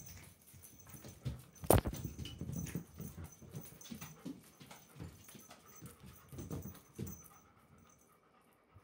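A kitten and a German shepherd scuffling around a swung cat-teaser wand on a fabric sofa: irregular soft thumps and patter of paws, with one sharp knock just under two seconds in. The activity settles and goes quiet over the last second or two.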